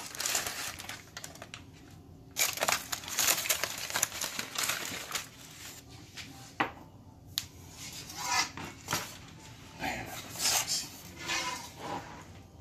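Aluminium foil crinkling and rustling in irregular bursts as a rack of glazed baby back ribs is worked out of it with tongs and a spatula, louder from about two seconds in.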